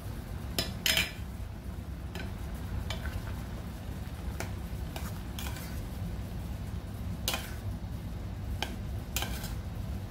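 A metal spoon stirring a coconut-milk curry of pumpkin and cowpeas in a stainless steel pot, with irregular clinks and scrapes against the pot every second or so. The loudest clinks come about a second in.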